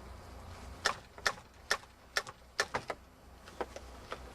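A series of about eight sharp clicks and taps, roughly two a second starting about a second in, from hard plastic and metal parts being handled while the saw is worked on.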